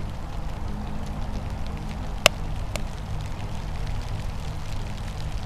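Wood fire burning in a tin-can rocket stove over a steady rushing noise, with one sharp crackle a little over two seconds in and a fainter one half a second later.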